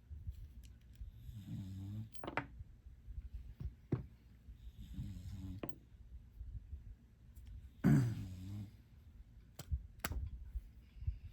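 Three snore-like rasping breaths about three seconds apart, the third the loudest, between sharp clicks of metal lock parts and tools being handled while an American Lock 5260 padlock is taken apart.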